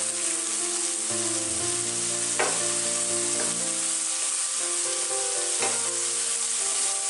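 Chopped onions and leeks sizzling gently in oil in a stainless steel pan on low heat, sweating rather than browning, as a wooden spoon stirs them. The spoon knocks lightly twice, about two and a half and five and a half seconds in.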